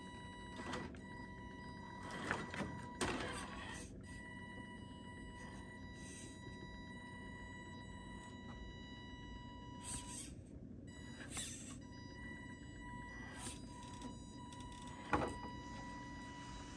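Carisma SCA-1E 1976 Ford F-150 RC crawler's small electric motor and gearbox whining steadily at crawl throttle. The whine cuts out briefly around ten seconds in. Tyres and chassis scrabble and knock against rock, with the loudest knock about fifteen seconds in.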